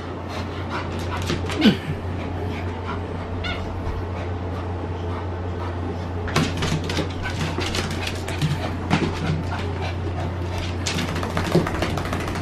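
A freshly bathed Pomeranian scrambling and rubbing itself on a towel and dog bed, with claws clicking and scuffing on a hardwood floor. The dog gives a short whimper about a second and a half in. A steady low hum runs underneath.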